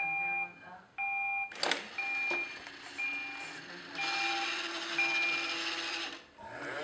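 An electronic beep of two tones at once, repeating about once a second. About four seconds in, a steady whirring hiss of a small motor starts under the beeps.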